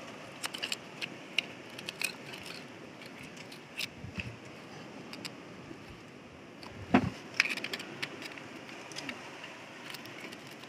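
Metal knife blade clicking and scraping against rock while prying gooseneck barnacles loose, a scatter of short sharp ticks over a steady low hiss. One heavier thump about seven seconds in.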